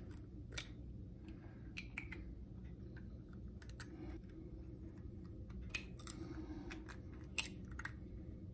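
Hen's eggs being cracked by hand: a scattered series of faint, sharp clicks and cracks of eggshell breaking and being pulled apart, the loudest about half a second in and again near the end.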